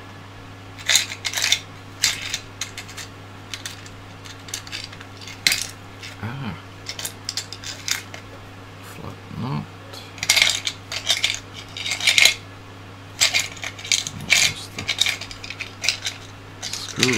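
Small metal hardware clinking and rattling against plastic parts and the tabletop in scattered clusters of quick clicks, over a steady low hum.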